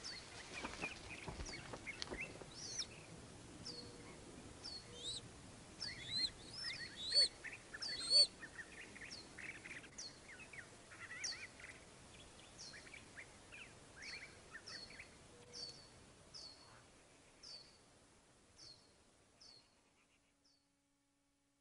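Birds chirping: a short, high, down-slurred chirp repeated about once a second over softer chirps, fading out near the end.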